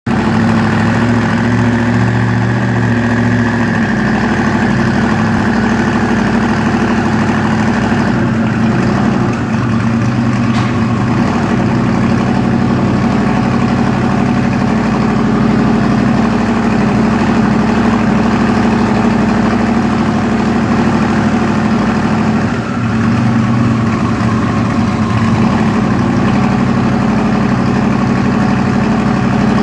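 Twin-turbocharged LSX V8 in a Camaro running at a steady idle, loud and even.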